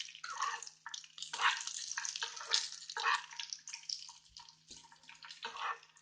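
Nuts frying in ghee or oil in a pan, sizzling in irregular crackling surges.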